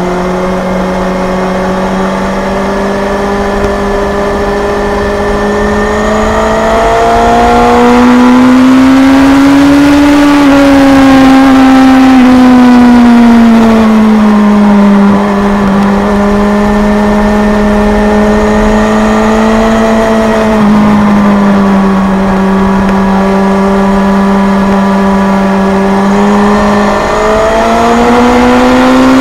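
Kawasaki Z1000's inline-four engine running hard at high revs while riding on a racetrack, its pitch rising and falling smoothly as the throttle is worked. It climbs about a third of the way in, drops back, holds steady and climbs again near the end, over a steady rush of wind noise.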